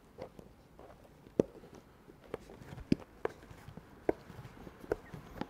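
A carbon fin blade being pushed by hand into the side rails of a rubber Mares Razor foot pocket: about half a dozen soft clicks and knocks at irregular intervals.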